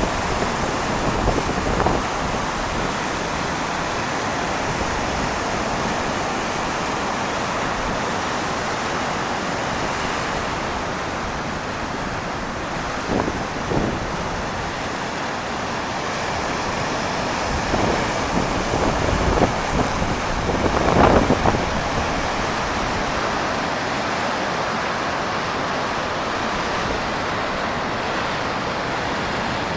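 Stormy Baltic Sea surf breaking steadily, with wind buffeting the microphone. A few brief louder surges come about a second in, around halfway, and again about two-thirds of the way through.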